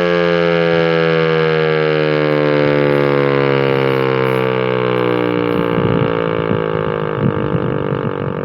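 American Signal T-128 outdoor warning siren sounding loudly, one steady rich tone whose pitch slowly falls. Low irregular rumbles join in from about six seconds in.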